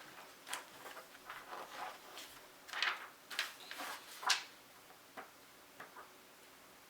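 Magazines and packaging being handled: a run of short paper-and-plastic rustles, loudest around the middle, then a couple of light clicks near the end.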